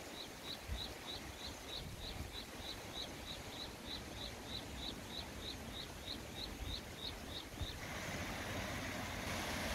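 A small animal's high, short chirp repeated evenly about three times a second, over a low outdoor rumble. The chirping stops near the end, where a louder steady hiss sets in.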